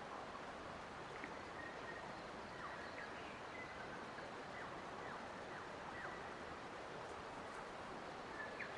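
Forest ambience: short, high bird chirps scattered throughout over a steady rushing background noise.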